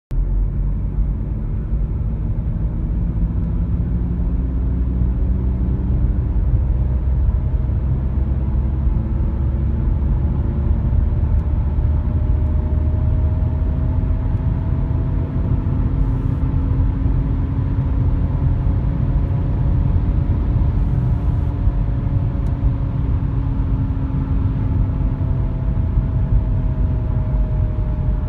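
Audi A5 B8 driving on the road: a steady low rumble with a droning hum that slowly rises and falls in pitch, the drone of a worn front right wheel bearing.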